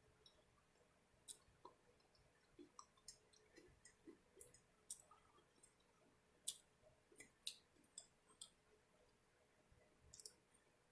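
Faint, irregular clicks and smacks of a person eating: mouth sounds while chewing.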